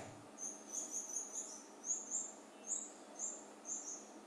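Faint, short, high-pitched chirps from a small animal, often in pairs, repeating a few times a second over a quiet room hiss.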